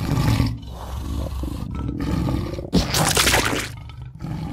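A monster's roar in several long pulses, loudest and harshest just under three seconds in, fading away at the end.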